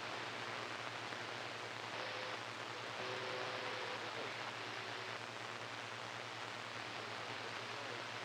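CB radio receiver giving steady static hiss on an open channel with nobody transmitting, over a low hum. A few faint, brief whistle tones come through about two to four seconds in.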